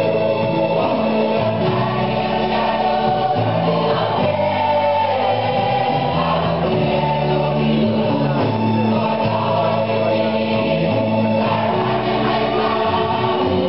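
A mixed school choir of girls' and boys' voices singing a gospel song in harmony, with long held chords.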